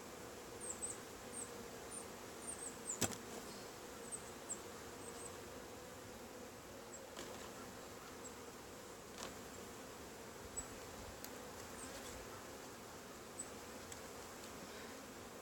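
Honeybees buzzing in a steady low hum around an open five-frame nuc. Faint high chirps come through in the first few seconds, and there is one click about three seconds in.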